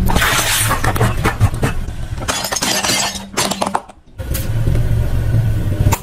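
A car tyre slowly rolling over and crushing small objects, with dense crackling and snapping over the car's low engine hum. After a short break about four seconds in, the engine hum returns with a few scattered sharp cracks.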